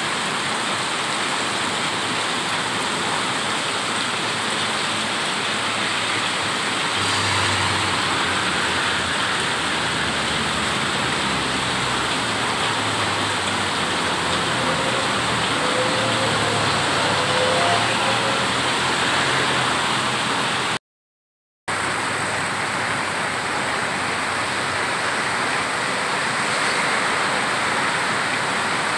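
Extremely heavy tropical monsoon rain pouring down, a steady rush of water, with a low rumble through the middle. The sound cuts out for under a second about three quarters of the way through.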